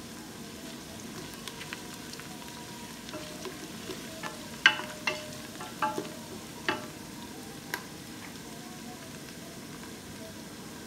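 Sliced onions sizzling in hot oil in a pressure cooker pot while a wooden spatula stirs them. In the middle stretch there is a run of sharp knocks as the spatula strikes the pot's side and bottom.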